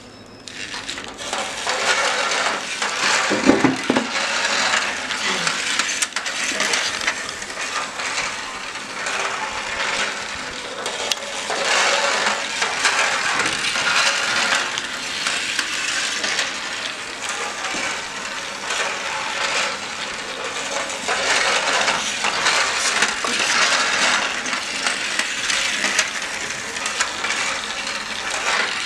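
Battery-powered plastic toy train running along plastic toy track, its motor and wheels making a continuous uneven rattle and clatter. There is a knock about three and a half seconds in.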